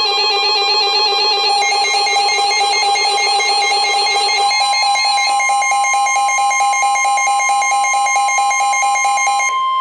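Emergency Alert System alert tones: a loud, rapidly pulsing electronic alarm, joined about halfway through by a steady single high tone that holds after the pulsing stops near the end. The alert announces an incoming National Weather Service tornado warning.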